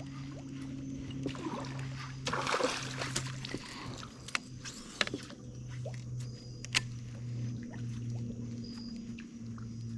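Kayak being paddled along a slow river: paddle strokes splashing and dripping, loudest about two to three seconds in, with a few sharp knocks against the hull over a steady low hum.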